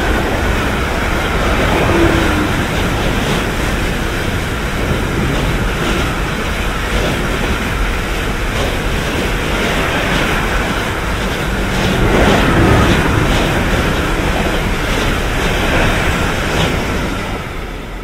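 A freight train of hopper wagons, hauled by an electric locomotive, passing close by. The wheels on the rails make a steady loud rush with occasional knocks, which starts to fade near the end as the last wagons go by.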